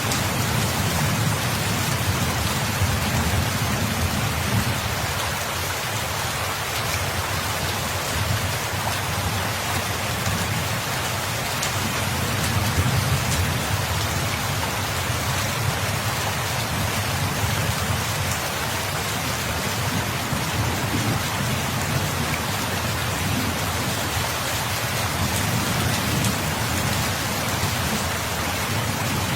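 Steady, heavy rain falling on a surface, with a low rumble underneath that swells and fades.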